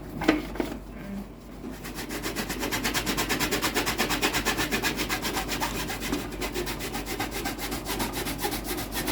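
Rapid back-and-forth scrubbing on a hard surface, about five strokes a second, starting about two seconds in.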